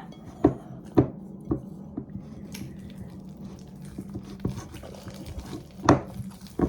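Clear glue and borax activator being stirred into slime in a bowl: wet stirring, with sharp clinks of the utensil against the bowl, three in the first second and a half and a louder one near the end.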